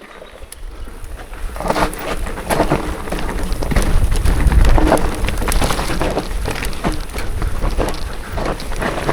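Riding an electric mountain bike over a rough forest trail: wind buffets the microphone while the tyres crunch and the bike rattles over the ground, with many small knocks. The noise builds over the first couple of seconds as speed picks up.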